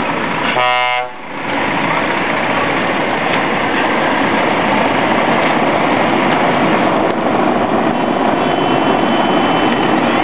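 A truck's air horn gives one short blast about half a second in, followed by the loud, steady running noise of heavy trucks driving off past close by.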